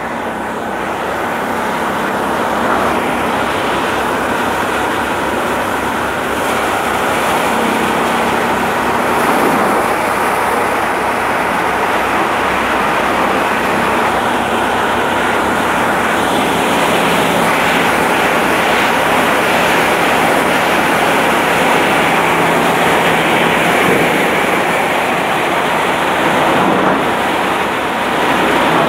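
Paddy thresher running while paddy is threshed, throwing the straw out far: a loud, even mechanical din without a break.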